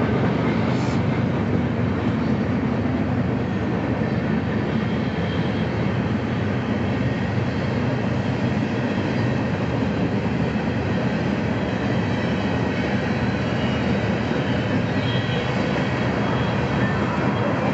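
A freight train's cars rolling past on the track. The noise is steady and loud enough to drown out a person talking.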